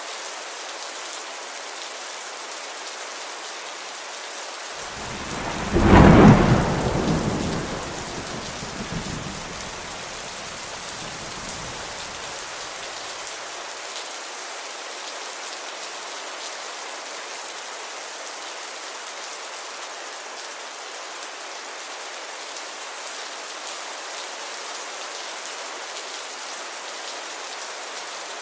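Steady rain falling. About five seconds in, a single thunderclap peaks about a second later, then rumbles and fades away over the next several seconds while the rain carries on.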